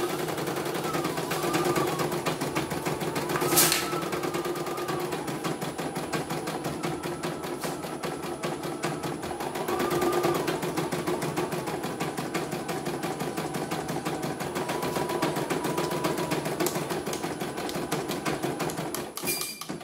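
CNY E900 computerised embroidery machine stitching at speed: a rapid, even clatter of needle strokes, with the whine of the hoop-drive motors rising and falling as the hoop moves. The stitching stops just before the end.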